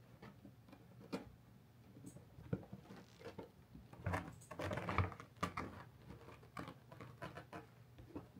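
A kitten shifting about in a felt cat cave: irregular soft ticks and scratches against the felt, with a denser rustling patch about four to five seconds in.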